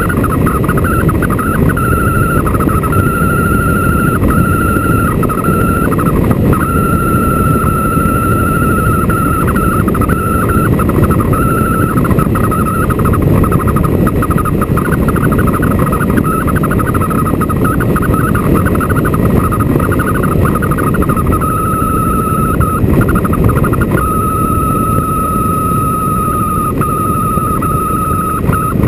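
Motorcycle riding on the open road: steady engine and wind rush, with a thin high whine that comes and goes several times.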